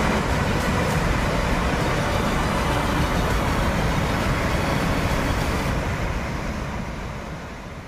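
Rushing floodwater of a swollen river pouring over a submerged low causeway bridge, a steady loud rush that fades out near the end.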